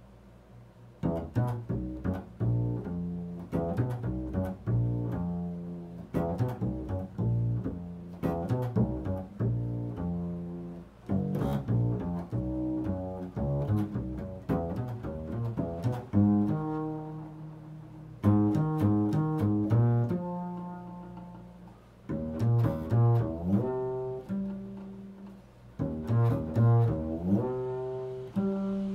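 Solo double bass played pizzicato: an improvised line of plucked, ringing notes built on the interval of a fifth, starting about a second in. Some notes are held longer, and there is a slide in pitch near the end.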